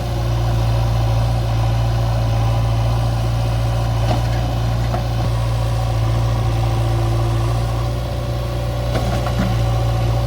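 JCB backhoe loader's diesel engine running at a steady speed, a low even drone with no revving, with a couple of faint knocks about four and nine seconds in.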